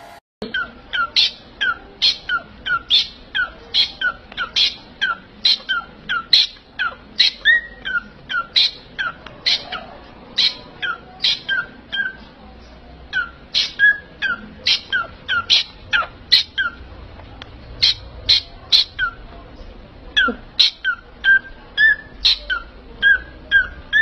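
A parrot calling over and over, short sharp notes about two a second, each dropping quickly in pitch, with a few brief pauses.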